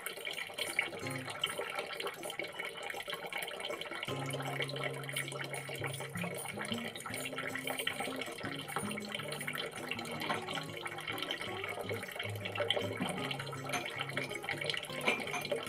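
Light clinks and knocks of steel kitchen containers being lifted off a shelf and wiped, over a faint steady watery hiss; from about four seconds in, a low voice hums or murmurs.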